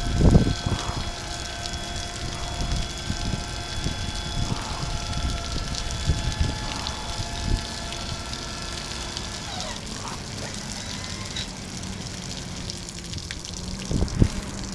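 Dump truck's hydraulic hoist raising the bed: a steady mechanical whine with the engine running, which glides down and stops about ten seconds in, leaving a lower steady hum. Irregular low thumps come near the start and again near the end.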